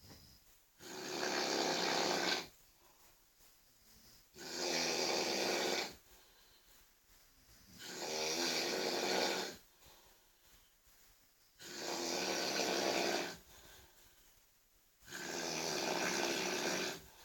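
A sleeping person snoring very loudly: five long snores in a steady rhythm, each lasting about a second and a half to two seconds and coming about every three and a half seconds, with quiet gaps between.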